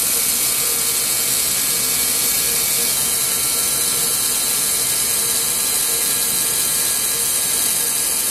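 3Doodler 3D pen's drive motor and gears running steadily as it feeds and extrudes plastic filament.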